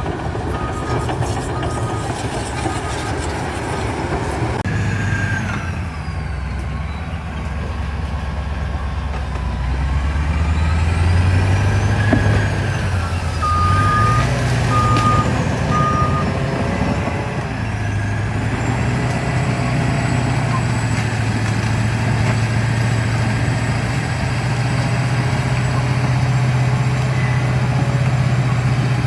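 Heavy diesel engine of earthmoving machinery running under load, rising in pitch as it revs up and then holding steady, with a reversing alarm beeping at the start and three beeps partway through.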